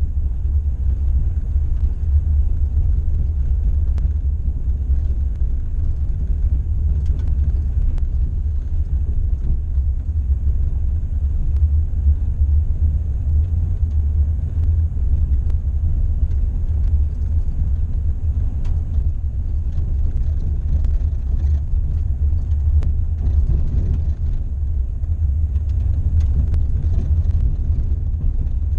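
Steady low rumble inside a van's cabin as it drives slowly on a smooth dirt road: engine and tyre noise, with a few faint ticks now and then.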